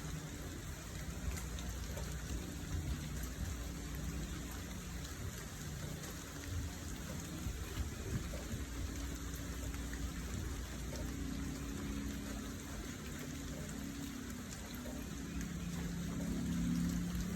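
Steady rain falling, with a low hum underneath that grows louder near the end.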